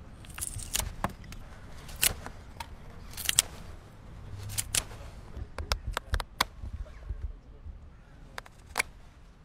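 Knife whittling the head of a pine treenail: an irregular series of short, crisp slicing cuts as the blade shaves the wood.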